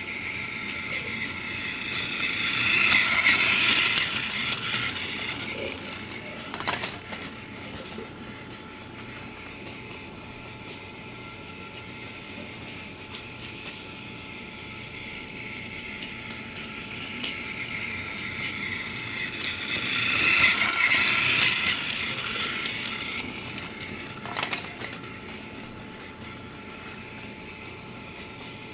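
Motorised toy train's small electric motor and gears whirring steadily. The whirr swells twice, a few seconds in and about two-thirds of the way through, and each swell is followed by a brief clatter of clicks.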